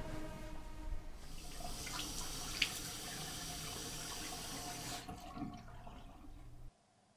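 Water running from a tap into a sink: a steady hiss that sets in about a second in, thins out near the end and cuts off suddenly.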